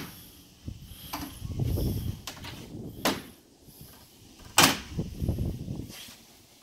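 Plastic upper radiator shroud cover of a 2018 Ram 1500 being pried off, its retaining clips popping loose with sharp snaps about three and four and a half seconds in, amid plastic rustling and flexing.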